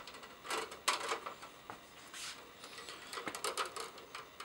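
Irregular light clicks and rustling as a plastic wire nut is twisted onto stripped wires and the stiff wire leads are handled.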